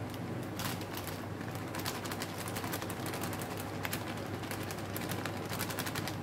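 Plastic flour packet crinkling with many small rapid rustles and clicks as wheat flour is shaken from it into a steel bowl, over a steady low hum.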